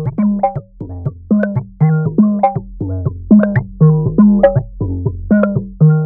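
Electronic drum pattern played on Dials 808, eight instances of the DIALS filter plugin played like an 808 drum machine, with the output run through another DIALS instance. It is a steady rhythm of short pitched hits, about three a second, each with a low tone and higher ringing notes.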